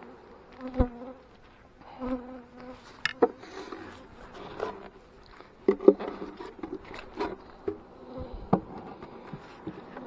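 Honey bees buzzing around an opened hive, broken by a string of sharp wooden knocks and clatters as hive boxes are handled and set down, the loudest about six seconds in.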